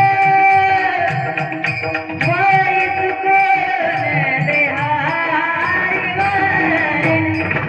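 A high, sweet singing voice holding a long note, then running through bending, ornamented phrases, over a steady drum rhythm.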